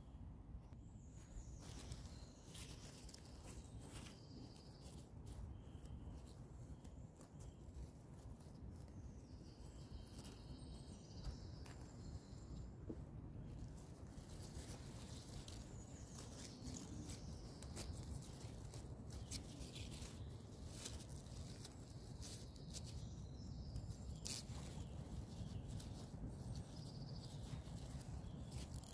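Wild garlic stems snapping and leaves rustling in short, scattered clicks as they are picked by hand, with birds singing in the background.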